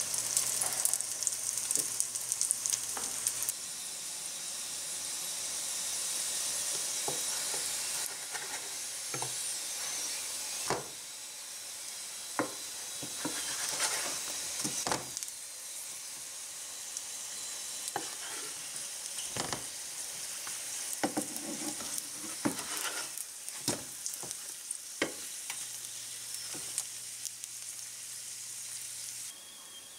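Flatbread pancakes frying in hot vegetable oil in a pan: a steady sizzle, with sharp clicks or taps now and then. The sizzle steps louder and quieter a few times.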